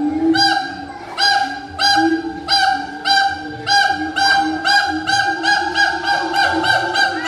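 Siamang calling: a loud series of short, honking calls, about one and a half a second and coming faster near the end, over a lower, steadier call.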